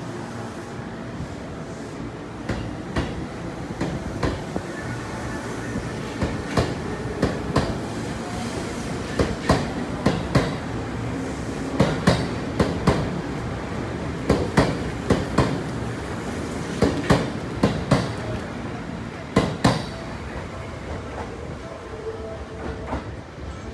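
Seibu 10000 series electric train pulling out and rolling past, its wheels clacking in quick pairs over the rail joints. The clacks come closer together and louder through the middle, then thin out near the end.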